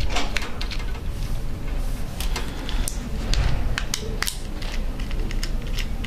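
Irregular small clicks and taps of a small screwdriver working the screws out of a laptop hard drive's metal housing, with the metal housing knocking in the hands.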